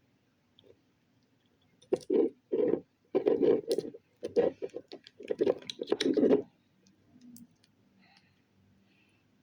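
Slime being squished and worked in the hands, giving a quick run of wet clicks and squelches that starts about two seconds in and stops after about six seconds.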